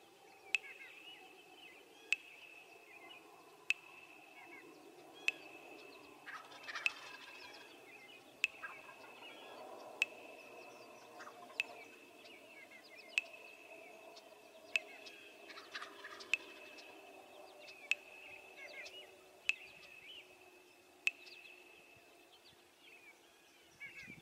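Faint wild turkey gobbles, two of them about nine seconds apart, amid small songbird chirps. A sharp tick repeats about every second and a half and is louder than the birds.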